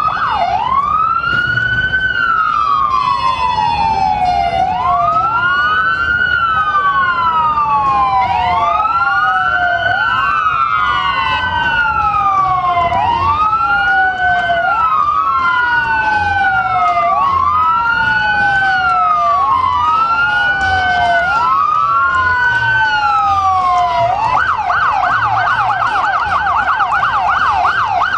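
Emergency vehicle sirens sounding in a slow wail: two sirens whose rising and falling sweeps overlap out of step, each rise and fall taking about two and a half seconds. Near the end they switch to a fast yelp.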